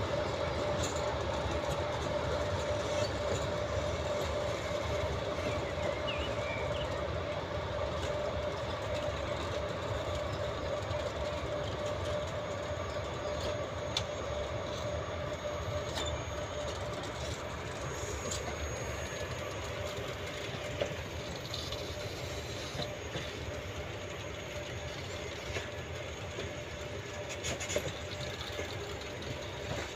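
Passenger coaches rolling past on the rails: a steady rumbling wheel noise with a faint ringing tone and a few sharp clicks. It fades slowly as the end of the train moves away.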